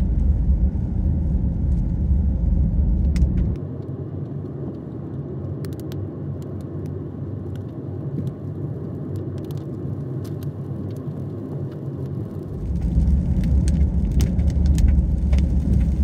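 Steady road and engine rumble of a car driving, heard from inside the moving car. The rumble drops suddenly to a quieter level about three and a half seconds in and comes back up near the end.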